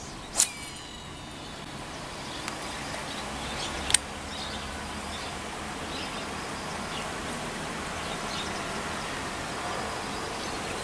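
Casting with a fishing rod and reel: a sharp click with a short whirring ring as the line pays out, then another sharp click about three and a half seconds later. Steady outdoor background noise runs throughout.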